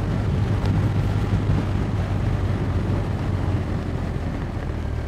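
BMW R1250R's 1254 cc boxer twin running steadily in third gear, heard from the rider's seat mixed with wind and road rush. The engine note eases slightly as the bike slows.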